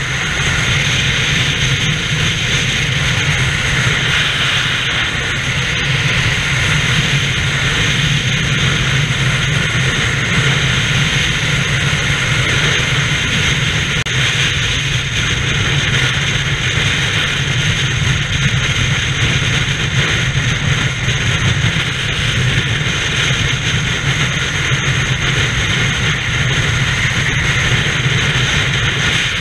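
Steady rush of wind and tyre noise from a vehicle travelling at freeway speed.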